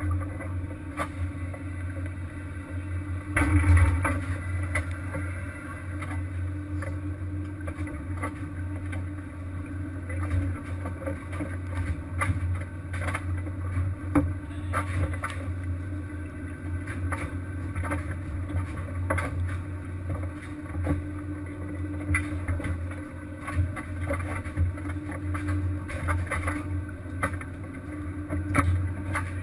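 Steady low drone of a fishing vessel's engine, with scattered knocks and clanks and a louder clatter about three and a half seconds in.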